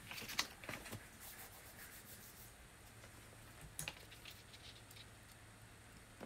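Faint rustling with a few light clicks as the painted sheet of paper is handled on the table, busiest in the first second and briefly again near the middle.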